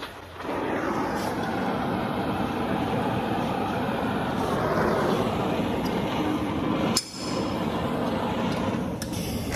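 Gas torch flame hissing steadily as it heats seized exhaust-manifold bolts so they can be turned out without breaking. The hiss drops out suddenly with a click about seven seconds in, then starts again.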